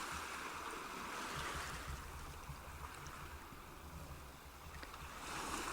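Soft, steady rush of flowing water from a nature-sounds recording, like a stream.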